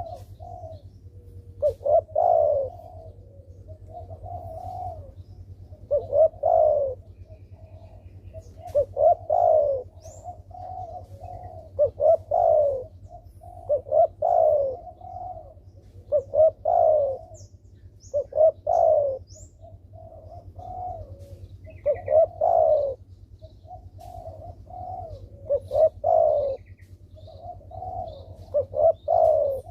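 Spotted dove (derkuku) cooing repeatedly in a steady rhythm: runs of softer coos, each closing with a louder, downward coo about every two seconds. It is a lively, frequently calling bird of the kind used as a lure call to set other derkuku cooing.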